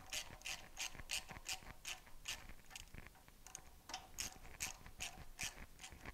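Hand ratchet clicking in short, even strokes, about three clicks a second, as the electric starter's mounting bolts are snugged down.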